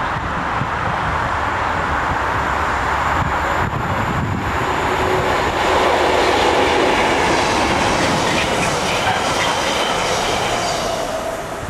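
Class 37 diesel locomotive 37405, with its English Electric V12 engine, running through the station at speed with a short train and a second locomotive at the rear. Wheels clatter over the rail joints, loudest as the leading locomotive passes about six seconds in, with faint high tones later as the rest of the train goes by.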